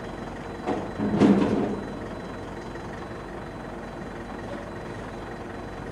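Truck-mounted aerial work platform running steadily, with two sharp metallic knocks a second or so in, the second louder and followed by a brief clatter.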